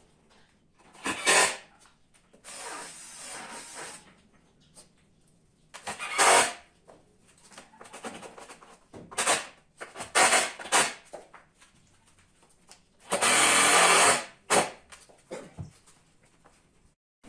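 Handheld power drill run in short bursts of about a second each, with pauses between them. The longest and loudest burst comes about two-thirds of the way through.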